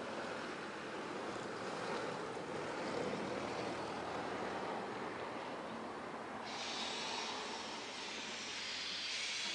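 C11-class 2-6-4 tank steam locomotive working toward the listener with a steady noisy rush. About two-thirds of the way in, a high steam hiss starts suddenly and keeps going.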